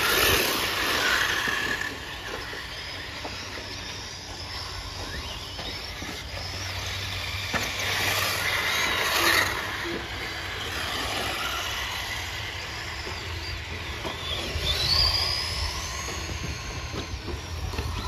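Electric RC rally cars racing on dirt: a high motor whine that swells and fades as the cars pass close, loudest about nine seconds in, with a whine rising in pitch as one accelerates a few seconds before the end.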